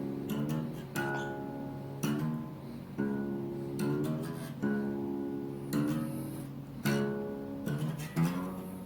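Slide guitar playing dobro-style blues licks: sharp strums or plucks about once a second, the notes ringing on and sliding in pitch between them.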